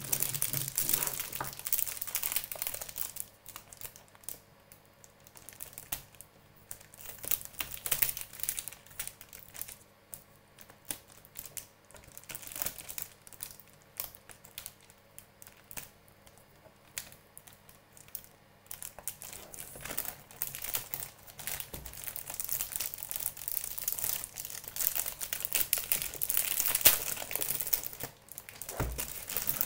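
Thin plastic packaging sleeve around a keyboard crinkling as hands handle it and pull at it. The crinkling is dense for the first few seconds and again through the last third, with sparser rustles between.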